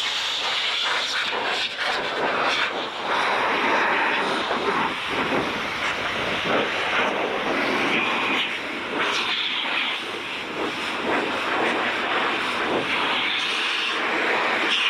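Heated pet dryer used as a blower, blasting air over a wet motorcycle to drive the water out. A continuous loud rush of air that keeps shifting in tone and strength.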